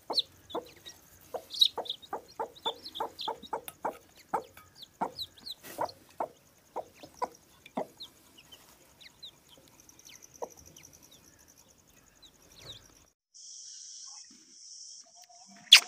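Broody hen clucking in short, quick clucks, about three a second, with newly hatched chicks peeping high over her. The clucks thin out after about eight seconds. Near the end a steady high chirring takes over, and there is one sharp click just before the end.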